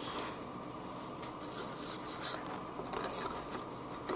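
Paper and card being handled on a tabletop: a folded paper strip slid and pressed against a mat board's bevelled edge, giving soft rustling and rubbing with a few brief scrapes.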